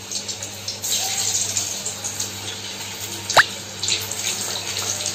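Vegetable Manchurian balls sizzling in hot oil as they fry, the hiss swelling about a second in and again near four seconds as more are added. A short sharp rising sound cuts through about three and a half seconds in.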